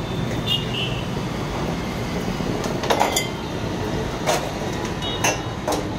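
Stainless steel tube frame knocking sharply about four times as it is handled, over a steady rumble of street traffic.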